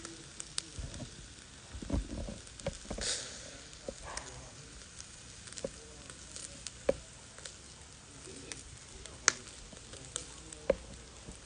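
Chicken wings sizzling over glowing charcoal in a shichirin, with scattered sharp pops and crackles from the grill. A few dull knocks about two seconds in.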